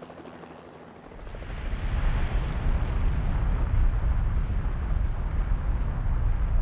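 Pu'u O'o vent of Kilauea volcano erupting: a deep, steady roar that swells up about a second in and holds.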